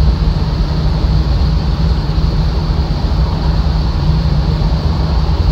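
Steady drone of a moving car heard from inside the cabin: engine hum under a continuous wash of road and wind noise, unchanging throughout.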